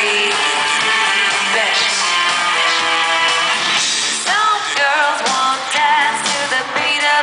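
Live pop music played loud in an arena, heard from within the audience: the band plays throughout, and a sung vocal line with vibrato comes in about four seconds in.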